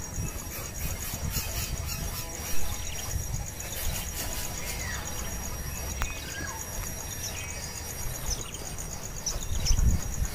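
Insects chirping in a steady, rapid, high-pitched pulse over a low rumble.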